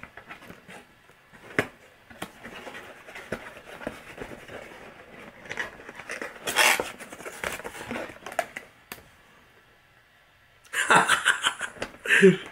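Paperboard gift box being opened by hand: flaps pulled apart and folded back, with scraping rustles and small clicks and one louder rustle about two-thirds of the way through. Near the end comes a short burst of laughter.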